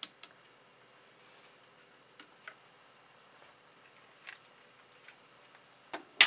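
A few light clicks and knocks as a small engraved wooden block is lifted off a laser engraver's bed and handled, with a sharper, louder knock near the end.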